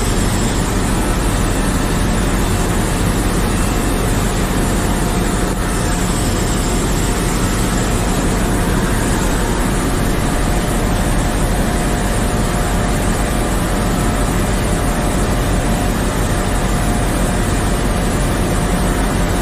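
Steady ship engine-room machinery noise: a loud, even roar with a low hum and a thin constant whine, and no change throughout.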